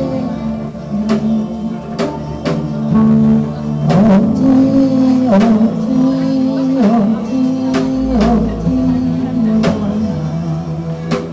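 Live band music: a held melody line that steps and bends in pitch, over steady accompaniment with irregular drum-kit hits.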